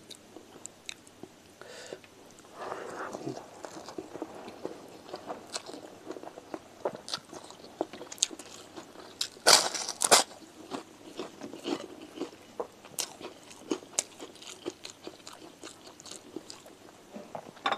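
Close-miked eating by hand: a man chewing a mouthful of rice and curry, with many short wet clicks and lip smacks. Two loud bursts stand out about halfway through.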